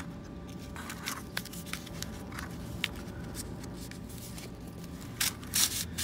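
Light scratching and small clicks of a folded plastic zip tie worked through a drilled hole in a cardboard tube, with a louder rustle about five seconds in as jute twine is drawn through.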